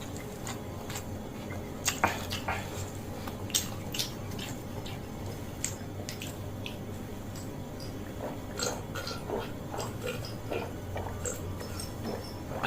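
Close-up eating sounds of fried noodles: wet chewing with sharp lip smacks and mouth clicks, irregular and scattered, over a low steady hum.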